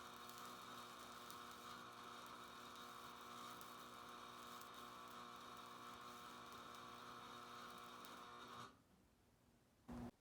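Faint steady electrical hum with several steady tones, which cuts off suddenly about two seconds before the end; a brief faint sound follows near the end.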